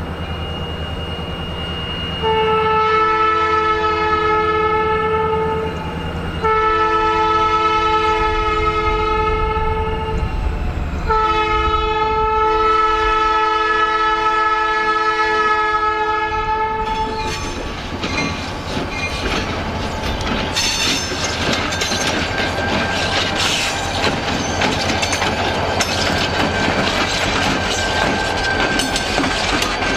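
EMD SD40-2 diesel locomotive sounding its chime air horn for a grade crossing: three blasts, the last the longest. From about eighteen seconds in the locomotive passes close by, its two-stroke V16 diesel running and its wheels clicking over the rail joints.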